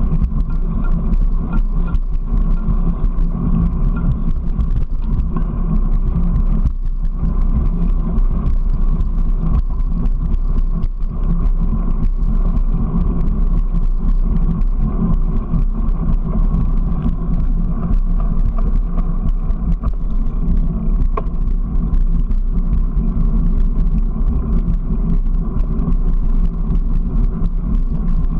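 Steady ride noise from a vehicle travelling along a concrete path: a loud low rumble with a constant hum running through it, and wind on the microphone.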